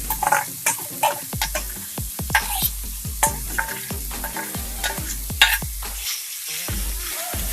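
Chopped vegetables frying in a little oil in a pan, sizzling steadily, while a spoon stirs them with repeated scrapes and knocks against the pan.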